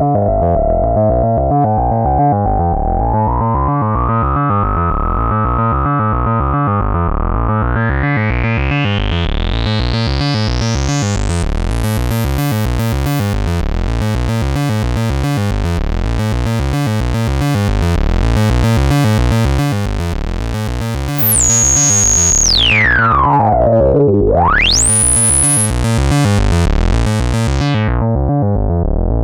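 Modular synthesizer: a Morphing Terrarium E350 wavetable oscillator playing a repeating note pattern through a resonant Eurorack filter whose cutoff sweeps. The bright resonant peak climbs slowly until the filter is wide open, then about two-thirds through it dives down low and sweeps straight back up before the sound darkens again near the end.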